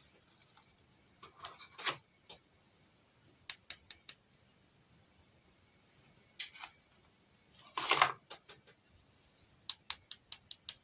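Hands handling small plastic doll toys and accessories: scattered sharp clicks and short rustles, with the loudest burst about eight seconds in.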